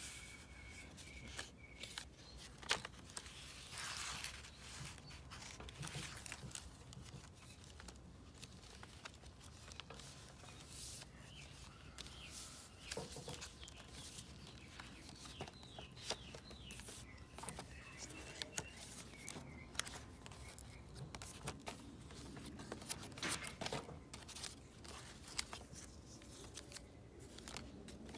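Paper pages of a handmade journal being turned and handled: rustling and crinkling with scattered small clicks and taps.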